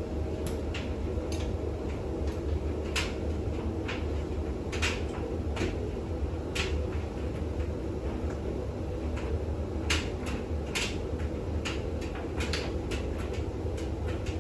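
Bosch WAX32GH1 washing machine on its intermediate spin, the motor and drum running with a steady low hum. Irregular sharp clicks and taps sound over it.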